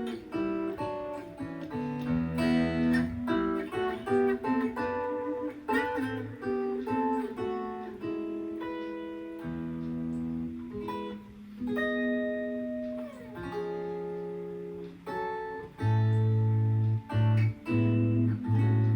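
Gibson ES-335 semi-hollow electric guitar being played: a quick run of single notes and chords, ending in heavy repeated low notes.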